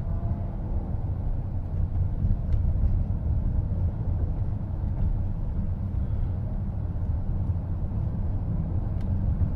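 Steady low road and tyre rumble inside the cabin of a moving car.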